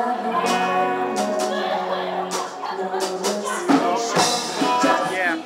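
Live rock band playing, a woman singing lead over guitar and a drum kit.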